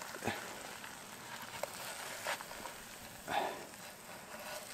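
Bannock frying in butter in a pan over a campfire: faint frying and a few small crackles and clicks, with a brief louder rustle about three and a half seconds in.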